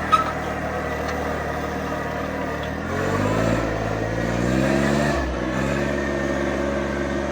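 A vehicle's engine running steadily, revving up about three seconds in and settling back to a steady run about two seconds later.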